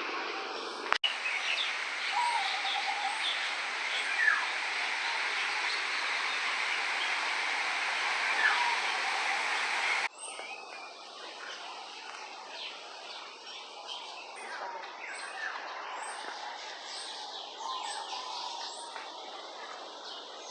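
Many birds chirping and calling over the steady rush of a waterfall. About halfway through, the rushing water stops suddenly, leaving the birds' scattered chirps and calls over a quieter background.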